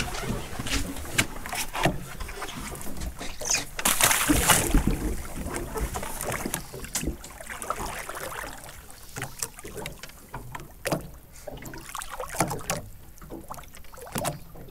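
Seawater splashing and sloshing at a boat's side as a tope shark is lowered over the gunwale and held in the water, with scattered knocks and clicks. A louder burst of splashing comes about four seconds in.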